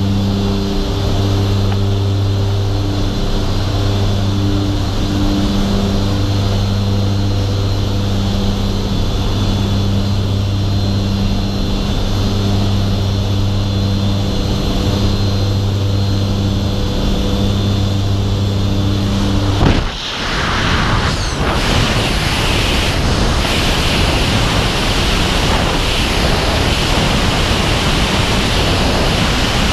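Steady drone of the jump plane's engines and propellers heard from inside the cabin; about two-thirds of the way through it gives way abruptly to a loud, steady rush of wind noise as the wingsuit flyer leaves the aircraft and falls free.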